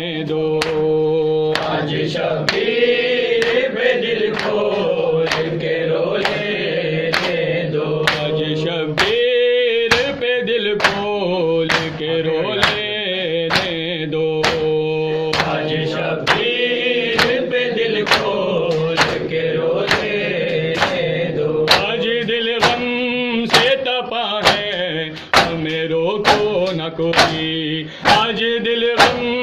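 Mourners chanting an Urdu noha (Muharram lament) together in long, held sung notes, over a steady beat of matam: open hands slapping the chest about one and a half times a second.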